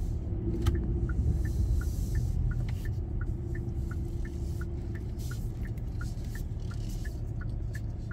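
Car cabin with a steady low rumble and the turn-signal indicator ticking evenly, about three clicks a second.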